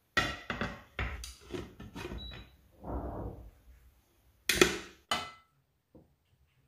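A ceramic plate clattering and knocking against the rim of a nonstick frying pan as it is set over an omelette and the pan is flipped over onto it. There is a quick run of knocks at first, a short scraping swell around three seconds, and the loudest sharp clack about four and a half seconds in, followed by a smaller one.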